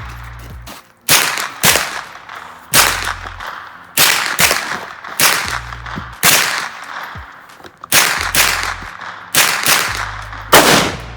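Palmetto State Armory AR-10 rifle in .308 Winchester firing about a dozen loud shots at uneven intervals, some only half a second apart, each crack trailing off with an echo.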